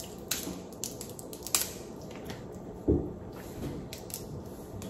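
Steamed blue crab shell being cracked and picked apart by hand: a few sharp cracks and snaps, with a dull thump about three seconds in.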